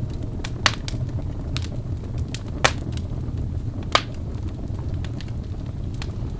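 Wood fire burning in a fireplace: irregular crackles with a few sharper pops, over a steady low rumble.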